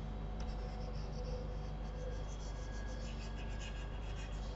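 Faint scratchy rubbing in quick short strokes from a hand input device moving over the desk, heard over a steady low electrical hum.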